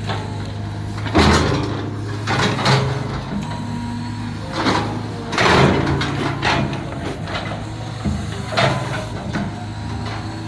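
Caterpillar 320 GC excavator at work: its diesel engine runs steadily underneath repeated short scraping and clanking noises, about seven of them, the loudest about a second in and near the middle.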